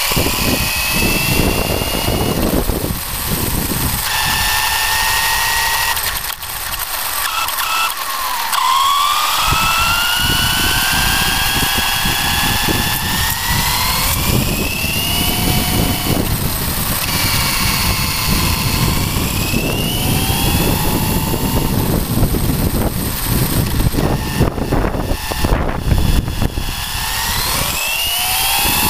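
Traxxas Slash RC truck's electric motor and drivetrain whining close up, the pitch rising and falling as it speeds up and slows, over rumble and rattle from the tyres and chassis. Near the end a run of sharp knocks and clatter cuts in.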